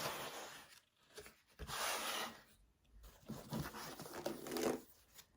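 Paper and cardboard food packaging rustling and tearing in three short bursts with pauses between.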